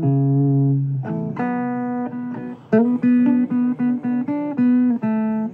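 Blues guitar playing an instrumental passage: a few held notes, then a run of shorter picked notes from about three seconds in.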